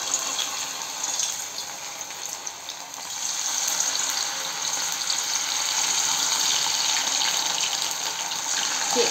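Battered chicken-and-potato pieces deep-frying in hot oil in a steel kadai: a steady sizzle with fine crackling, growing louder about three seconds in as more pieces go into the oil.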